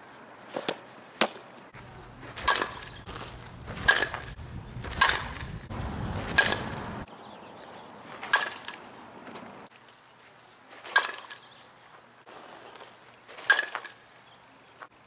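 Softball bat hitting pitched balls: seven sharp cracks, each with a brief ringing ping, coming every one and a half to two and a half seconds. Two lighter smacks come just before them, and a low rumble of wind on the microphone runs under the first few hits.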